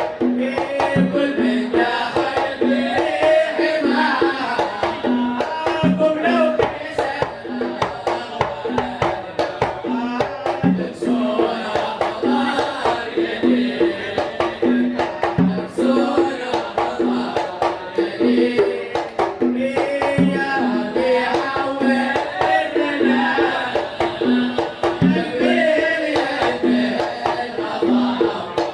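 Religious song in the Kuwaiti sawt style: a sung qasida over hand drums keeping a steady beat of a few strokes a second, with a deeper stroke about every five seconds.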